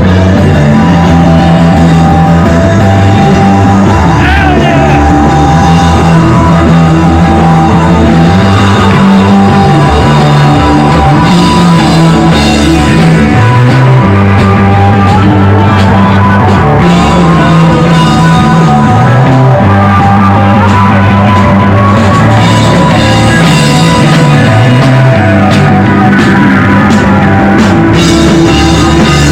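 Rock music with guitar and drum kit over a repeating bass line, playing continuously and loudly.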